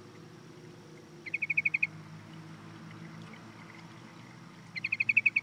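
Yellow-vented bulbul calling: two quick bursts of about eight rapid, evenly repeated notes, one about a second in and another near the end. A low steady hum runs underneath.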